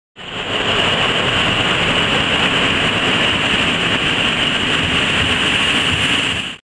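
PKP Intercity EP07 electric locomotive and its passenger coaches passing close by: loud, steady running noise of wheels on rail with a high steady tone on top. It starts suddenly from silence and cuts off suddenly near the end.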